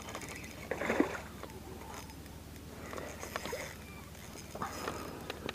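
A hooked smallmouth bass splashing at the water's surface while being reeled in, three short splashes about a second, three seconds and five seconds in.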